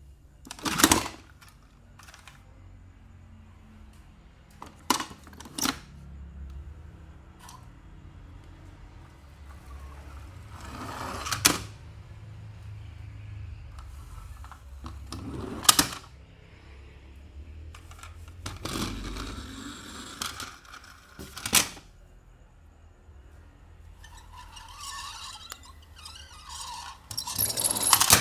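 Small toy cars clicking and clacking as they are handled, taken from a cardboard box and set down, with rustling and scraping between the knocks. About seven sharp knocks are spread through the clip, with a busier clatter near the end.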